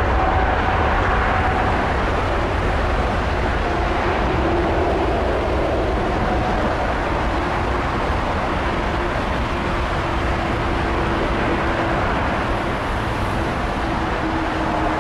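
Boeing 747-8's four GEnx-2B turbofan engines running as the jet moves along the runway: a steady jet roar with a faint whine that sinks slowly in pitch.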